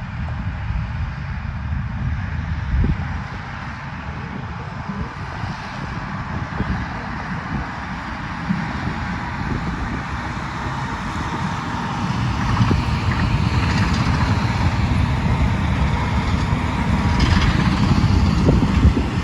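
Tractors running under load while pulling hay balers through a field: a steady low engine drone with machinery clatter, growing louder over the second half.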